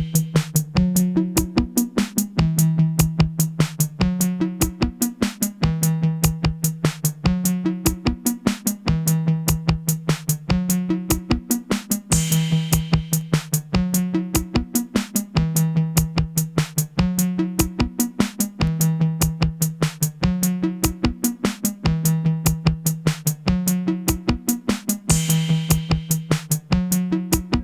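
Electronic music from a modular synth patch: a repeating bass line from a Make Noise 0-Coast stepped by a 960 sequencer, with a Mutable Instruments Rings voice playing a Euclidean sequence, over a steady drum-machine beat. A bright cymbal-like swell comes about every thirteen seconds.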